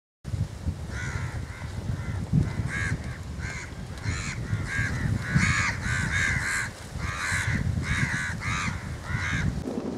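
Crows cawing in a long string of short, harsh calls, over a steady low rumble of wind on the microphone.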